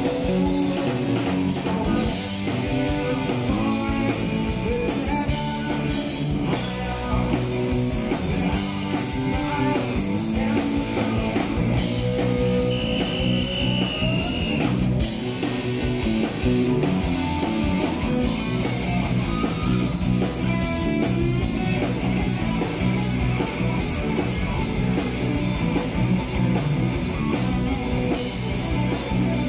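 Live rock band playing an instrumental passage with no vocals: electric guitars, bass guitar and drum kit.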